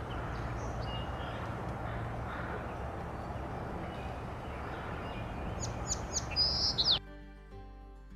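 Song sparrow singing: a few faint high notes, then about five and a half seconds in a louder run of quick downward-sweeping notes ending in a trill, which cuts off suddenly at about seven seconds.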